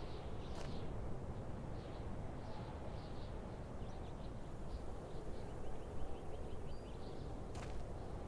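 Quiet desert ambience: a steady low rumble with faint, scattered bird chirps and a quick run of small chirps about two thirds of the way through. A couple of sharp clicks, one near the start and one near the end.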